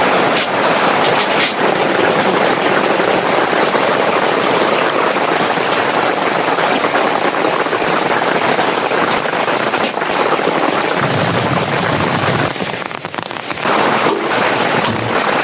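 Steady rain falling, a loud, even hiss of drops, with a brief lull about thirteen seconds in.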